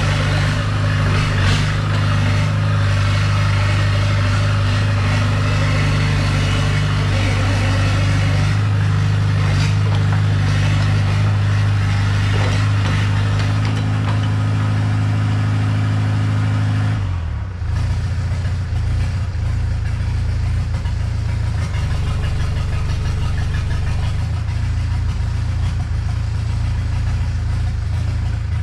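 Diesel engine of a Komatsu PC60-5 excavator running steadily at idle. About two-thirds of the way through its note changes abruptly with a brief dip, then settles into a steady, slightly lower run.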